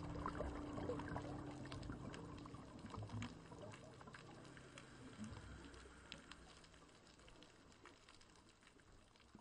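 Faint underwater ambience: a watery hiss scattered with many small clicks, slowly fading toward near silence. The tail of background music dies away in the first few seconds.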